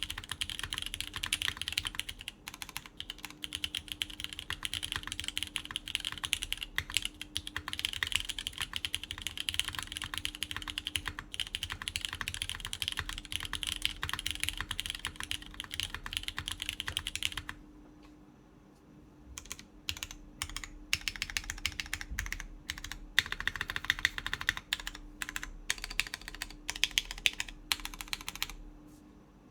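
Typing on a Qwertykeys Neo80 Cu mechanical keyboard in its top-mount setup, with lubed Cherry MX Orange tactile switches on a PEI plate and GMK Carbon keycaps. Fast continuous keystrokes thin out to scattered single key presses a little past halfway, then pick up again before trailing off near the end.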